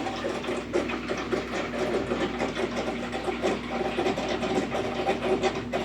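Samsung 5 kg automatic washing machine running steadily in its drain stage, its drain pump working: a constant mechanical hum with a fast rattle over it.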